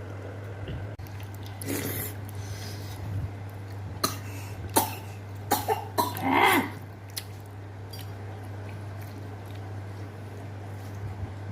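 A person coughing and clearing the throat a few times while eating, with sharp clicks from bites or handling, over a steady low hum.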